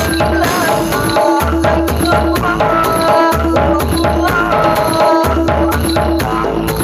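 Loud DJ dance music played through a truck-mounted sound system with subwoofers: heavy bass, a fast, even percussion beat of about four hits a second, and a melody over it.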